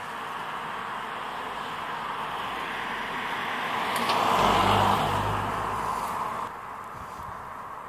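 A car passing by, its tyre and engine noise swelling to a peak about four and a half seconds in, then dropping off suddenly about two seconds later.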